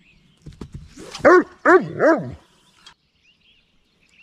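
Dog barking three times in quick succession, about a second in.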